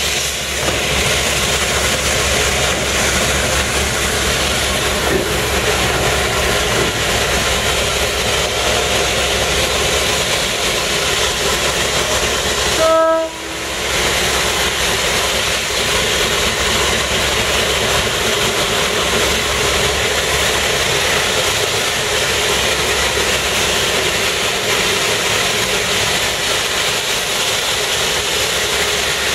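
Diesel locomotive running steadily as it moves off the turntable into the roundhouse stall. About 13 seconds in there is one short, single-pitched toot of its horn.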